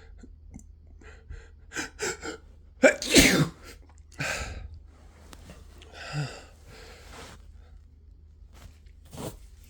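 A person sneezing with the flu: a few quick catching breaths, then one loud sneeze about three seconds in, followed by softer breaths.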